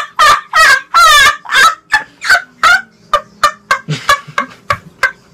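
A boy laughing hard in a rapid, high-pitched cackle of about three hoots a second, which grows quieter and more clipped in the second half.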